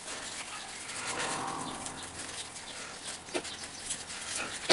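Rubbing and creaking of a headphone ear cushion being worked and stretched over its plastic earcup by hand, with small plastic clicks and a sharp click at the end.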